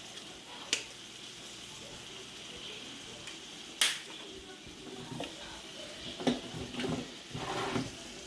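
Shredded chicken sizzling in a skillet with water and seasonings: a steady hiss. A sharp click comes about a second in and another near four seconds, with light irregular knocks in the second half.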